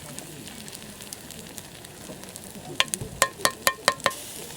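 Food sizzling and frying in a skillet over a campfire. About three seconds in comes a quick run of about seven sharp, ringing metallic clinks, as a utensil knocks against the pan.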